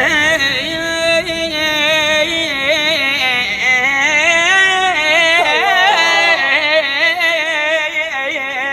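A solo voice singing a long, ornamented melismatic line in a Middle Eastern style, its pitch wavering and bending without a break.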